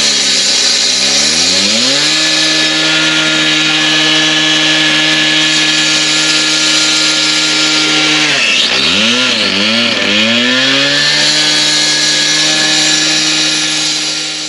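Concrete saw running at high speed as its blade cuts through a concrete paver. Its pitch sags under load and recovers near the start, then dips and wobbles again a little past the middle as the blade bites.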